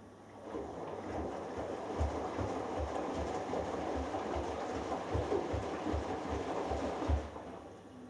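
Hoover Dynamic Next DXA610IW3 front-loading washing machine turning its drum during the wash phase of a Delicates cycle. The wet laundry swishes and sloshes with a low thump two to three times a second. The drum starts about half a second in and stops about seven seconds in, the pause of the gentle delicates wash action.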